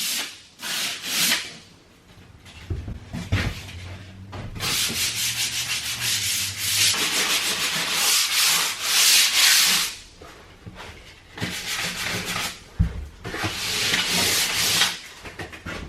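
Drywall joint compound on a patched wall being sanded in quick back-and-forth scratchy strokes, in runs of a few seconds with short pauses between them, and a single low knock about three-quarters of the way in.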